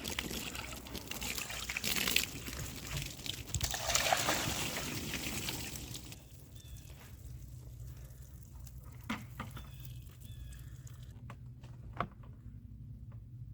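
Water poured over a freshly milled ash slab, splashing and trickling for the first half, loudest about two and four seconds in. It then quietens to a few light knocks over a low steady hum.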